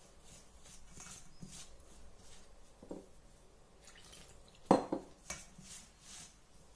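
A hand working dry rice flour and roasted gram flour in a stainless steel bowl: soft rustling strokes about twice a second. A little past the middle, water goes in from a steel tumbler, with one loud metallic knock against the bowl.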